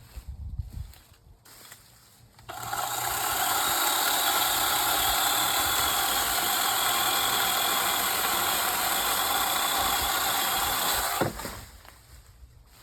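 Tornado Tools 20V cordless chainsaw's brushless electric motor and chain running at speed. It starts abruptly a couple of seconds in, holds a steady high whine for about eight seconds, then winds down and stops.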